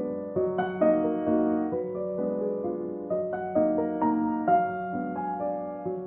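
Background music: soft classical piano, single notes and chords struck one after another every half second or so, each left to ring and fade.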